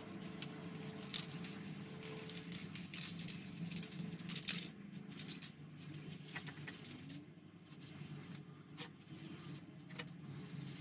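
A run of quick, light clicks and ticks over a steady low hum. The clicks come thickly at first and thin out to a few scattered ones after about halfway.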